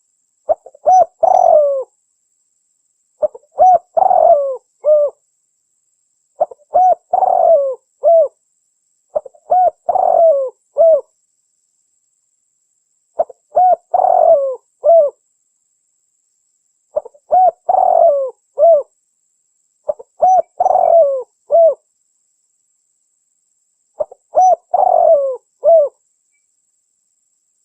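Spotted dove cooing: a loud, repeated phrase of several short coo notes, given about every three seconds, nine times in all.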